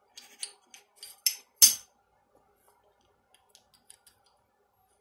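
Small metal clicks and taps of an FNP-45 pistol's slide, recoil spring and guide rod being handled and fitted back together. The loudest is a sharp click about one and a half seconds in, followed by a few faint ticks.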